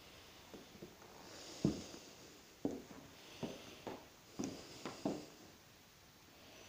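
Footsteps on bare wooden floorboards indoors: about seven irregular, dull thuds, closest together in the second half.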